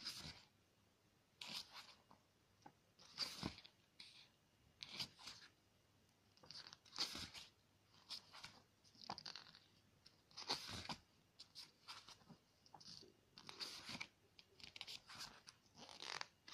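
Pages of a paper photobook being turned by hand: a run of soft paper rustles and flicks, about one every second.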